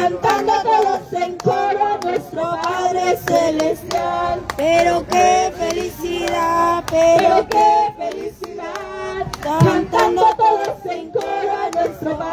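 A woman singing into a microphone, held notes sliding up and down, with hands clapping along.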